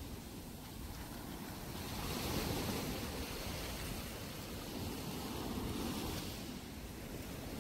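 Small Gulf of Mexico waves washing onto a sandy beach. The surf swells twice, at about two and a half seconds and five and a half seconds, over a steady low rumble of wind on the microphone.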